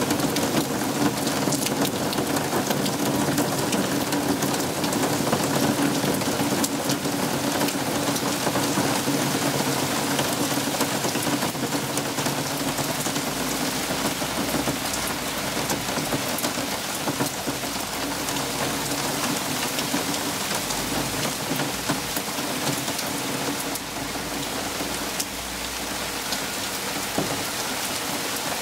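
Hailstones falling in a steady, dense patter of fine clicks on the ground and plants, easing slightly toward the end.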